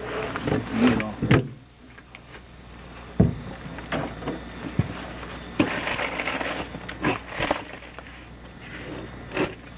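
Irregular knocks and rustling from spot fish being dumped into an ice-filled cooler and shifted around in it, with a sharp knock every second or two.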